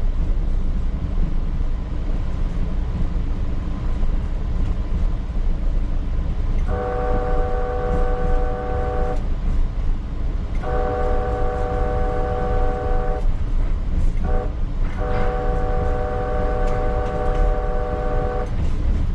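P865 light rail car's horn sounding the grade-crossing signal, two long blasts, a short one and a final long one, each a steady chord of several notes. Underneath, the steady rumble of the car running over the rails.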